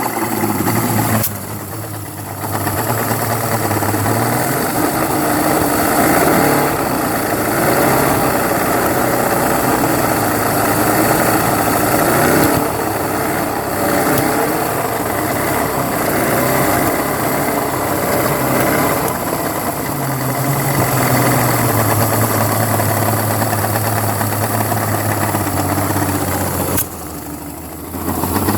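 Johnson 225 V6 two-stroke outboard running unevenly after 12 years of sitting, its sound dipping briefly about a second in and again near the end. The owner traces an intermittent cough to the upper left carburettor and small backfire flames to the middle right carburettor.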